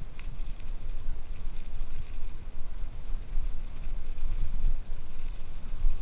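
Mountain bike riding over a block-paved road: wind buffeting the microphone as a rough, uneven low rumble, with the bike's faint light rattles over the stones on top.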